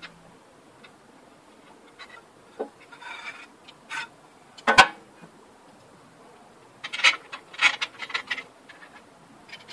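Aluminium fence parts of a Makita 2704 table saw being handled on its metal table: scattered light scrapes, rubs and clicks of metal on metal. One sharper knock comes near the middle, and a cluster of clicks and rubs follows about two seconds later.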